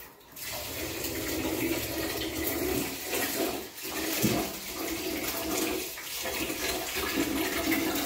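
Kitchen tap running steadily into a pot, water for rice and lentils, starting about a third of a second in with a few brief dips.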